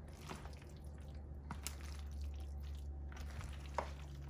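Spatula stirring cooked noodles through a creamy tuna mixture in a plastic bowl: soft wet squishing with a few light clicks against the bowl, over a low steady hum.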